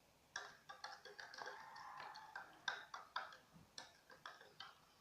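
A stirrer ticking and clicking irregularly against a small container as a glue-and-water slime mixture is stirred, with a brief scraping stretch around the middle.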